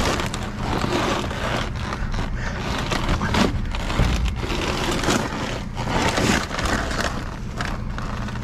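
A metal smoker being dragged and shifted across a steel dumpster floor: irregular scraping and rustling through the trash with repeated knocks and bumps.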